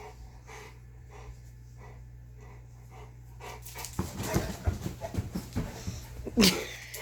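American Bulldog panting, about two breaths a second. From about four seconds in come louder clicking and scuffling sounds, and near the end a single sharp, loud cry.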